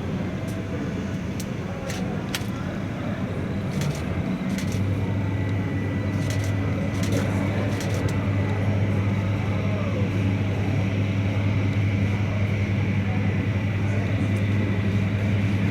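Terminal background noise: a murmur of voices and scattered clicks, with a steady low hum that starts abruptly about five seconds in and holds.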